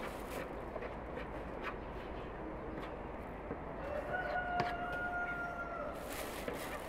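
A rooster crows once, a single held call of about two seconds a little past the middle, over steady outdoor background noise with a few faint clicks.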